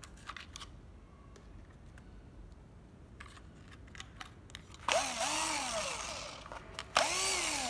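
Small 9.6 V cordless drill motor tested after a few light clicks of handling. It runs twice, about two seconds each time, with a whine that rises and falls in pitch. Forward and reverse both work.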